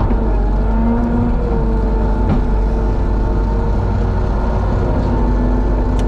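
Skid-steer loader's engine running steadily, heard from inside the cab, with a strong low rumble.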